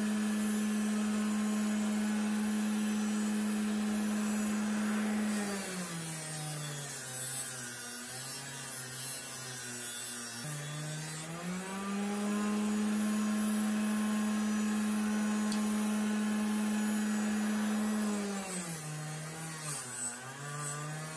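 Small bench grinder running with a steady electric-motor hum. Twice its pitch sags, for several seconds then for a couple, with a grinding hiss as a knife blade is held to the wheel to put a new edge on it, slowing the motor under load.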